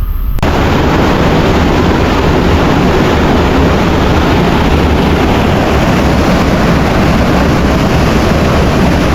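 Loud, steady roar of rushing water from Mekong waterfall rapids. It cuts in abruptly just after the start.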